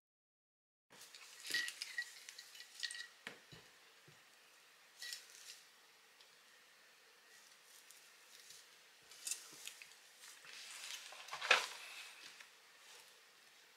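Scattered light clicks and small metallic taps from handling a fly-tying vise and tools, with the sharpest click about eleven seconds in.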